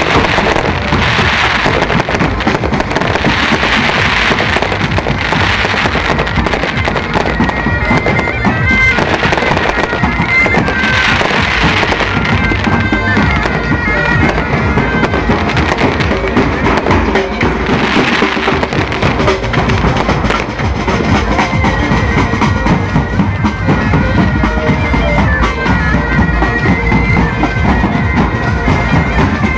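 Pipe band playing: bagpipes sounding a tune over large bass drums beating.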